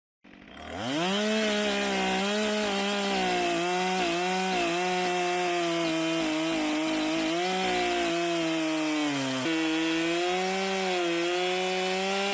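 Chainsaw revving up to full throttle about a second in and cutting into a tree, its engine note sagging and recovering again and again as the chain bites into the wood. It bogs down sharply once near the three-quarter mark, picks back up, and is let off right at the end.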